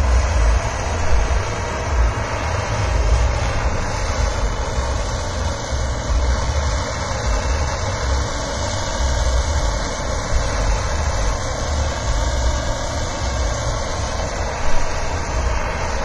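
Handheld gas blowtorch flame hissing steadily as it chars the surface of a wooden board, with uneven wind rumble on the microphone.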